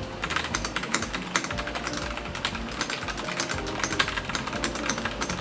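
Fast typing on a Yunzii pre-built mechanical keyboard with Gateron Black switches: a dense, uneven run of key clacks, with background music underneath.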